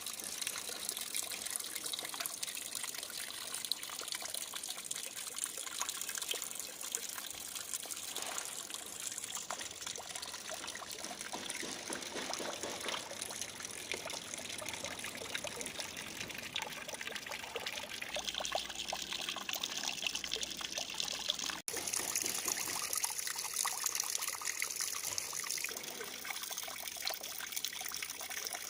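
Water fountain running, water trickling and splashing steadily, with a momentary break about 22 seconds in.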